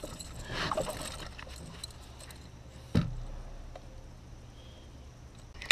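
Handling noises in a canoe over a low steady hum, with one sharp knock about three seconds in and a click near the end.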